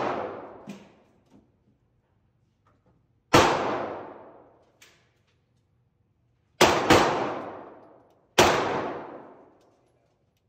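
Four pistol shots on an indoor range, each with a long echo dying away: one about three and a half seconds in, a quick pair near seven seconds, and one more about a second and a half later. The echo of a shot fired just before is still fading at the start.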